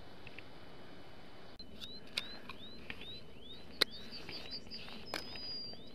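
A few sharp plastic clicks from a small bait container being opened by hand. Behind them a bird repeats short rising whistled notes, about three a second.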